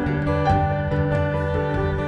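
Instrumental worship music without vocals: violin and acoustic guitar playing a gentle passage, with the violin holding a note from about half a second in.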